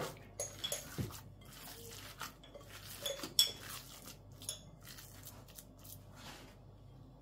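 Hands squeezing and kneading raw minced lamb mixed with chopped onion and herbs in a glass bowl: irregular wet squelches and small clicks that die away near the end.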